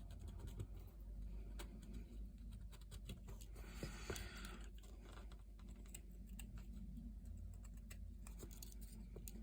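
Swiss Army knife blade cutting basswood: faint, irregular small clicks as the blade bites and slices off shavings, with a longer scraping cut about four seconds in.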